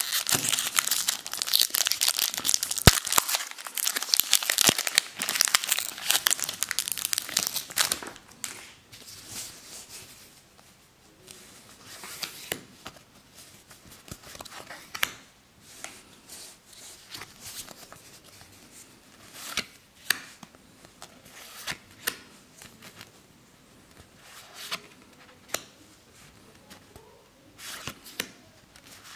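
Foil wrapper of a Magic: The Gathering booster pack crinkling and tearing as it is ripped open, loud for about the first eight seconds. After that come scattered light clicks and slides of trading cards being flipped through one at a time.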